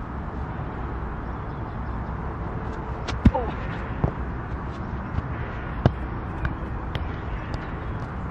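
A football hitting the artificial turf with a sharp thud about three seconds in, followed by a few lighter knocks as it is touched and dribbled, over a steady low wind rumble on the microphone.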